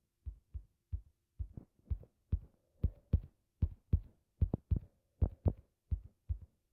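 A run of short, dull thumps, two to three a second at uneven spacing, over a faint steady hum.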